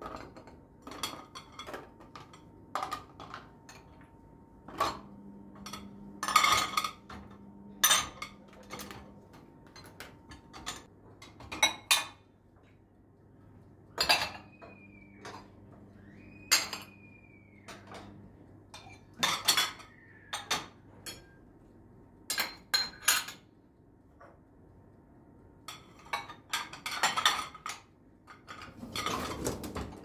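Glasses and ceramic plates clinking and knocking against each other and the wire racks of a dishwasher as they are handled, in irregular sharp clinks with short pauses between.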